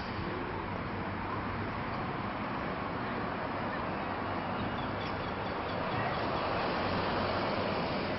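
Steady city street noise: a continuous hum of passing traffic, swelling slightly about six seconds in.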